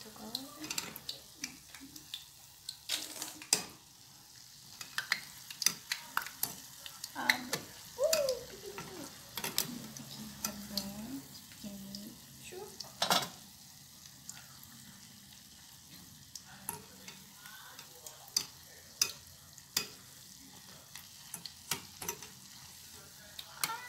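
Carrot bolinho de chuva dough balls deep-frying in hot oil with a steady sizzle. Scattered sharp clinks and taps come from a wire skimmer against the enamel pot and a spoon against the batter bowl as the balls are turned and scooped.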